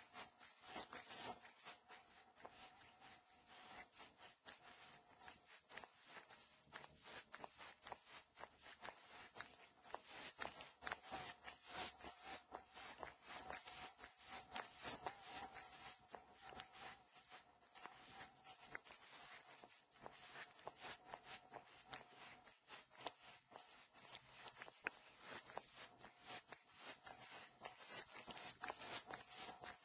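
A white cat's tongue licking a human fingertip close to the microphone: a steady run of quick, slurping licks, several a second, without a break.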